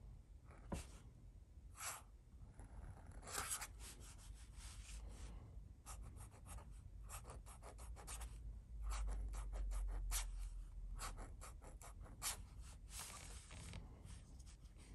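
Flexible nib of a Waterman 22 Taper Cap fountain pen scratching across paper as it writes, in a run of short strokes that come quicker and closer together from about six seconds in.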